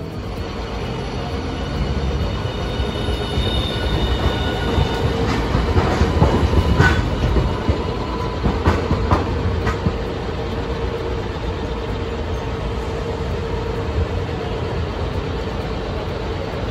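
A Hiroshima Electric Railway Green Mover LEX low-floor tram running past close by, its wheels clicking over rail joints and points several times in the middle, with a steady hum underneath. A faint high wheel squeal comes a few seconds in.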